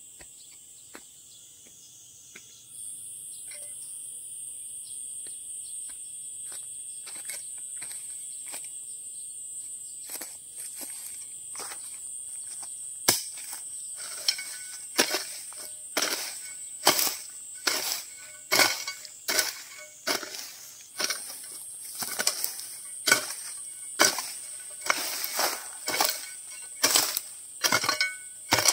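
Chopping into wood: sharp strikes about one a second, getting louder about halfway through, over the constant high drone of insects.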